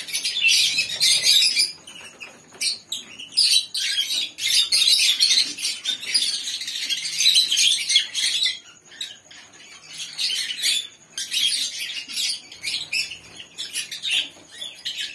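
Hand-fed parrot chick giving rapid, high-pitched begging calls as it takes food from a syringe, its wings fluttering, with a quieter lull about two-thirds of the way through.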